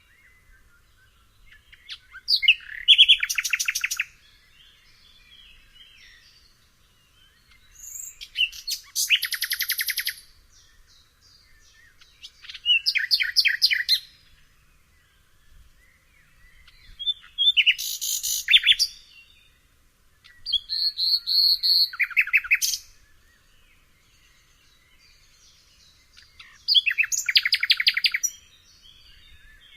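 Nightingale singing: six short phrases of about two seconds each, separated by pauses of a few seconds, each made of fast repeated notes and trills.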